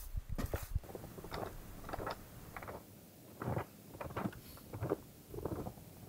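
Footsteps crunching in snow, a few soft, irregularly spaced crunches each second.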